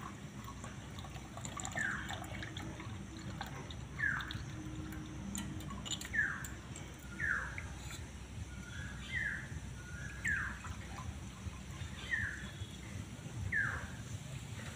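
A bird calling again and again with short falling chirps, about one every second or so, over a faint steady trickle of juice poured through a strainer into a glass.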